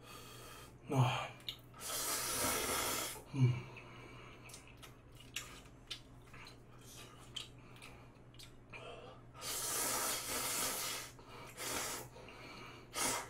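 A person slurping spicy Buldak stir-fried noodles in long hissing draws, about two seconds in and again around ten seconds, with a shorter slurp near the end and small chewing and chopstick clicks between.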